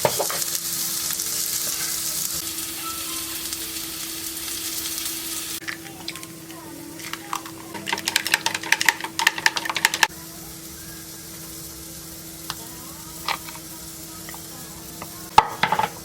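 Food sizzling in a frying pan, a steady hiss that stops about five and a half seconds in. It is followed by a few seconds of quick clicks and scrapes from a utensil stirring, and a short clatter near the end. A steady low hum runs underneath.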